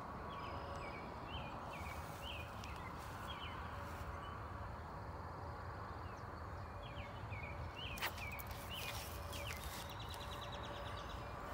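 Quiet outdoor ambience at a pond: a steady low background with small, short high chirps repeating every half second or so, a single click about eight seconds in, and a quick run of fine ticks shortly after.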